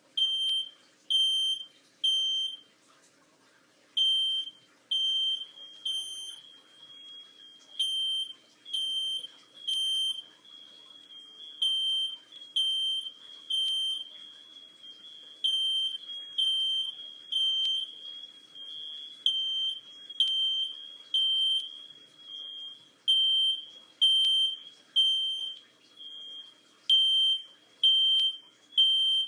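Smoke alarm sounding loud, high-pitched beeps in groups of three, with a pause after each group: the temporal-three evacuation signal. For a stretch in the middle the beeps run together almost without a break.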